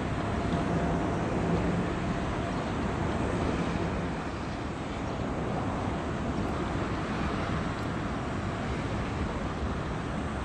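Steady low rumble of wind and water with a faint engine hum from a small coastal cement carrier passing close by; the hum eases off after about four seconds.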